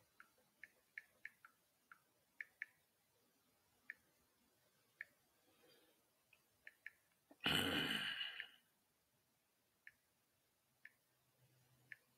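A man's loud breathy exhale into the microphone, about a second long, a little past halfway. Scattered faint clicks are heard around it, mostly in the first half.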